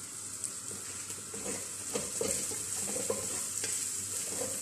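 Chopped onion, ginger and garlic sizzling in a little hot oil as they are sautéed toward golden brown. From about a second and a half in, they are stirred, and the utensil scrapes against the pan in irregular strokes.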